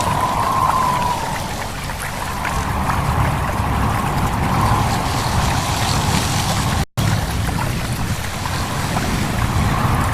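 Stream babbling steadily, with wind rustling through leaves. The sound cuts out for a split second about seven seconds in.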